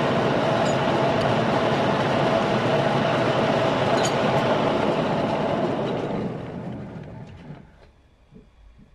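Metal lathe running steadily with a constant gear whine, then switched off and winding down to a stop over the last few seconds.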